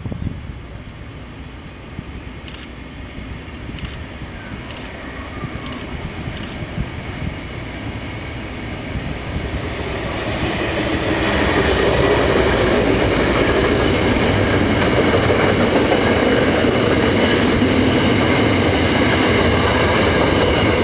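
A loaded freight train's wagons rolling past, their wheels clacking over the rail joints. The noise builds about ten seconds in and stays loud, with a steady high wheel squeal over it.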